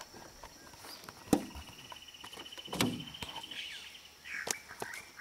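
A rapid, even animal trill lasting about two seconds in the middle, with a few sharp knocks of handling in an aluminium boat, the loudest about a second in.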